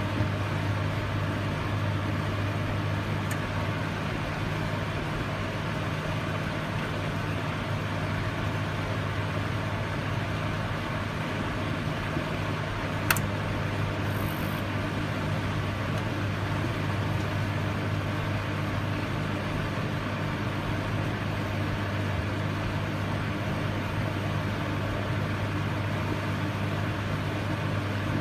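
Microwave oven running with a steady low hum, and one sharp click about halfway through.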